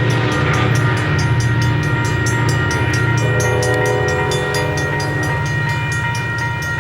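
ACE commuter train passing close by, a horn sounding a steady chord over the low rumble of the train, with a rapid, even clicking throughout. A lower set of notes joins about three seconds in.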